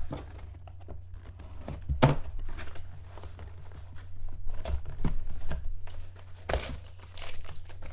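A cardboard trading-card hobby box being opened and its foil packs handled: scattered knocks, taps and rustling, the sharpest knock about two seconds in.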